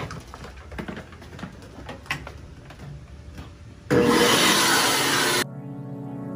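Shop vacuum run in reverse to blow air into an air-conditioner condensate drain line: a loud, steady rush of air starts suddenly about four seconds in and cuts off after about a second and a half. Faint clicks and handling come before it, and background music with steady held tones follows.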